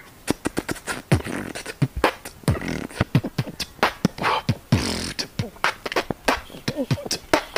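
A person beatboxing: a quick rhythmic run of sharp mouth clicks and snare sounds over deep kick-drum thumps that drop in pitch.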